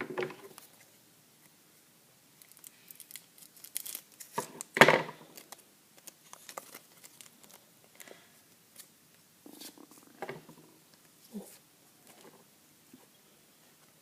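Scissors snipping open a trading-card pack, then the wrapper crinkling and cards shuffling as they are handled, in scattered short clicks and rustles. The loudest sharp snap comes about five seconds in.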